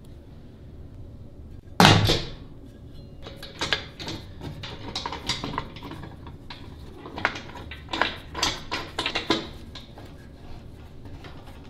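Steel pressure pot being closed: one loud metal clank with a short ring about two seconds in, then a run of lighter metal clicks and rattles as the lid's swing-bolt wing-nut clamps are swung up and tightened.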